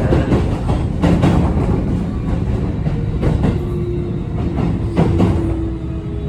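Keio 8000 series electric train with Toshiba PMSM-VVVF traction motors, heard from inside the car while running. There is a steady rumble, and the wheels knock over rail joints a few times. About four seconds in, a steady motor tone comes in and holds.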